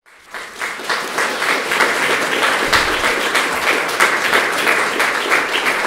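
An audience applauding, swelling up within the first half-second and then holding steady.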